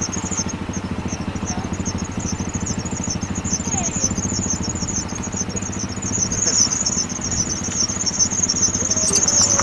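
Vehicle engine running steadily with a fast, even low pulsing as the vehicle drives off, with insects chirping in a continuous high buzz.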